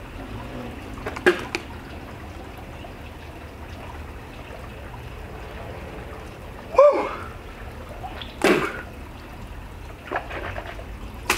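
A man's coughs, sharp breaths and a short voiced groan, a few seconds apart, over a steady low hiss: he is reacting to the burn of an extremely spicy chili pepper.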